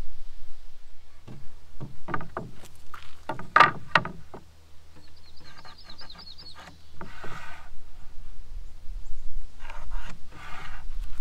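Wooden pine boards knocked and shifted on a folding table, a flurry of sharp knocks in the first few seconds, then a pencil scratching short lines along a speed square, twice in the second half. A low steady hum runs underneath.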